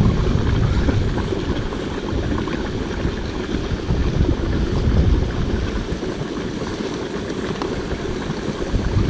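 Volcanic thermal mud pit bubbling, under a steady low rumble of wind buffeting the microphone.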